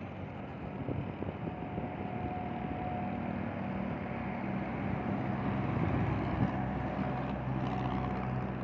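Heavy tractor-trailer truck driving past close by, its diesel engine hum and tyre noise growing louder to a peak about six seconds in, then easing slightly as it moves away.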